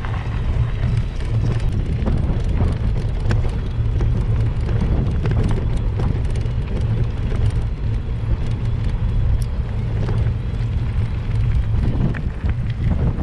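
Wind buffeting a bike-mounted camera's microphone on a moving mountain bike, a steady low rumble with scattered ticks from the tyres rolling over a gravel and dirt track.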